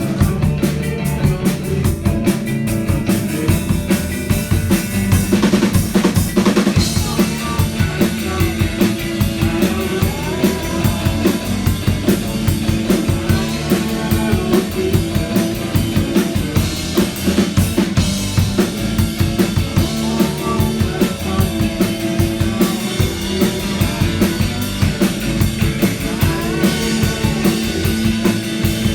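Live indie rock band playing an instrumental section: a drum kit keeps a steady beat of bass drum, snare and rimshots over sustained guitar and bass, with no singing.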